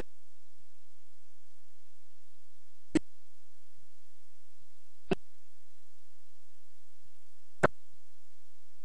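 Digital cable TV sound cutting out on a broken-up signal: instead of the programme's audio there are only four sharp clicks, a few seconds apart, the first the loudest. They are the glitches of a decoder losing its reception.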